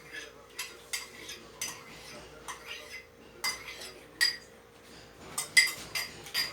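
A metal spoon clinking and scraping against a container: a dozen or so sharp, irregular clinks, the loudest near the end. A faint steady hum runs underneath.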